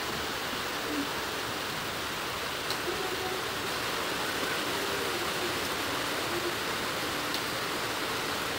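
Steady background hiss with no speech, with a few faint indistinct sounds in it.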